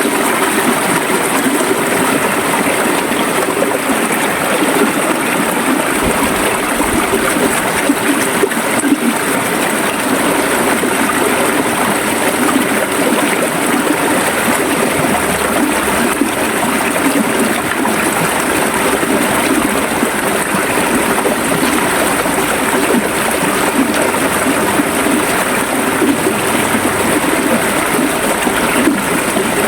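River water flowing over stones, a steady rushing and gurgling.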